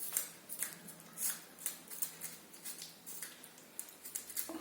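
Kitten eating cheese close to the microphone: a run of small, irregular chewing and licking clicks.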